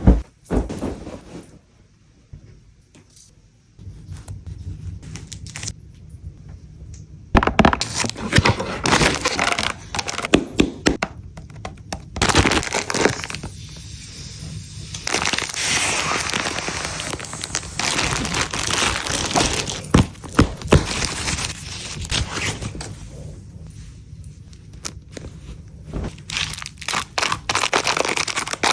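Close-up handling sounds of decorations being unpacked and arranged: crinkling and crackling packaging with many sharp clicks and taps of small objects. Sparse for the first several seconds, then busy almost continuously.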